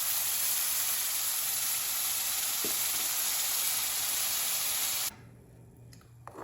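Hot oil sizzling in a kadai as the ground tomato chutney paste fries in the tempering: a steady hiss that cuts off suddenly about five seconds in.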